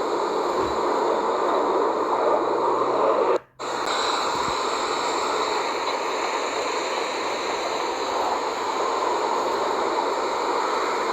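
Steady rushing roar of fighter jet engines, with a brief cut-out about three and a half seconds in.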